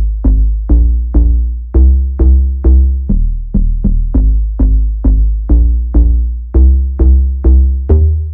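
Electronic background music: a steady beat of struck, fading synth notes, about two to three a second, over a deep bass.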